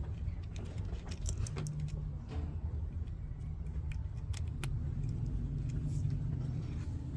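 Scattered clicks and light rattling from handling a power cord and the pump's wire connections, over a steady low hum.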